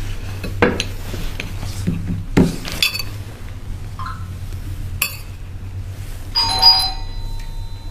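A fork clinks and scrapes on a plate of pasta as it is eaten, with several sharp clinks. About six and a half seconds in a bell-like chime sounds and lingers; it is the loudest sound here.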